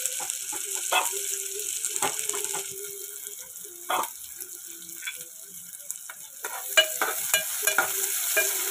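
Sliced onions sizzling in hot oil in a metal pot, still pale and early in frying toward light golden brown. A spoon clinks and scrapes against the pot now and then, more often near the end as the onions are stirred.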